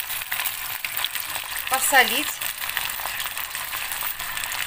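Rice and toasted vermicelli in oil and water bubbling and sizzling in a hot frying pan over high heat, stirred with a silicone spatula, with many small clicks and pops. A brief squeak about two seconds in.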